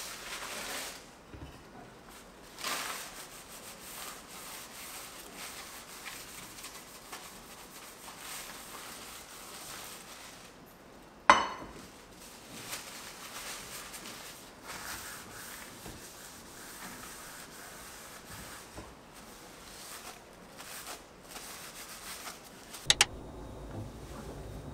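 Kitchen towel being crumpled and rubbed, wiping a frying pan, with one sharp knock about eleven seconds in.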